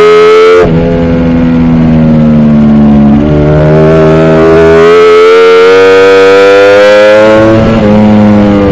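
Ducati Panigale V4 R's V4 engine at race pace on board: its note breaks sharply under a second in and sinks slowly, then climbs in one long steady pull from about three seconds in, dropping off again near the end.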